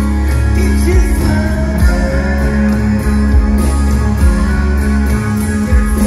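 Rock band playing live: electric guitar, bass and drums keeping a steady beat, with a voice singing.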